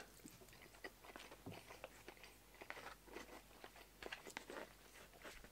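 Faint, close-up chewing of a mouthful of scrambled egg, with scattered soft mouth clicks. Near the end come a few light clicks of wooden chopsticks in a plastic bento tray.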